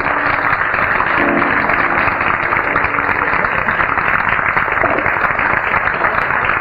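Studio audience applauding steadily at the end of a dance number, a dense even clapping.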